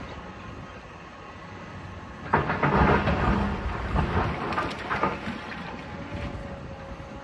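Building demolition: a low steady machine drone, then about two seconds in a loud crunching, clattering rumble of breaking and falling rubble that goes on for several seconds.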